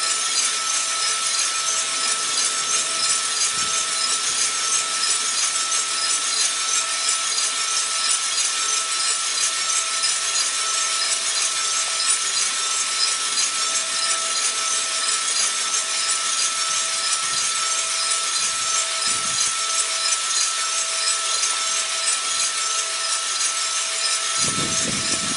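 Cormorant CR600 gas coffee roaster running mid-roast in the drying phase: coffee beans tumbling and rustling in the rotating drum over the steady rush of the exhaust fan and gas burner, with a faint steady high whine.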